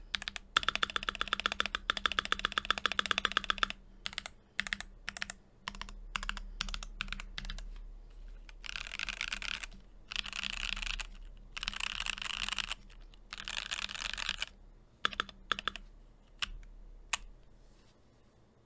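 ROG Azoth mechanical keyboard with lubed Gateron Luciola linear switches being typed on. It opens with a fast, loud run of rapid keystrokes, then scattered single presses, then several denser bursts about a second long each, and ends with a few isolated presses.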